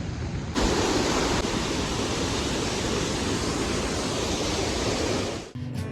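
Steady rushing of falling water. It starts abruptly about half a second in and cuts off suddenly near the end.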